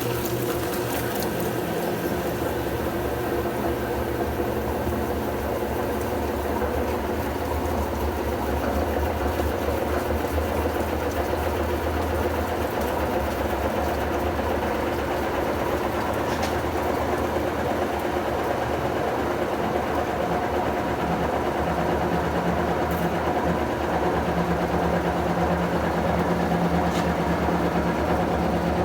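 Electrolux Prosdócimo washing machine running with a steady motor hum.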